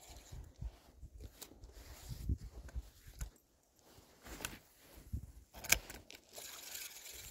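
Handling noise: a camouflage jacket's fabric rubbing and bumping against the camera's microphone, with scattered irregular clicks and low knocks and one sharp click near six seconds, then a rustling hiss near the end.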